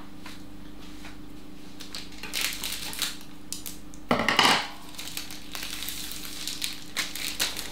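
Kitchen handling noises as scissors and a filo pastry packet are handled, with rustling two to three seconds in and a louder short clatter about four seconds in. Under it runs the steady low hum of a fan oven preheating.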